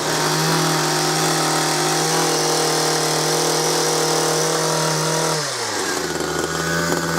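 Ryobi RHT2660DA hedge trimmer's two-stroke engine running steadily at high revs; about five seconds in the revs drop and it settles at a lower speed.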